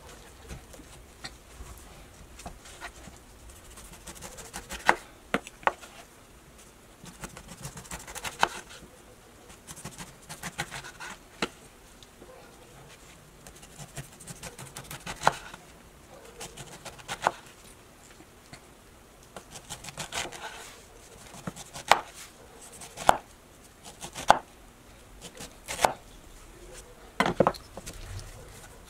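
A large kitchen knife cutting through a pineapple's rind and flesh, the blade knocking sharply on a wooden cutting board at irregular intervals of a second or two.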